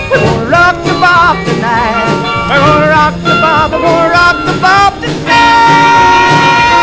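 Rockabilly band recording in its closing bars, with a wavering lead line over the band, ending on one long held note from about five seconds in.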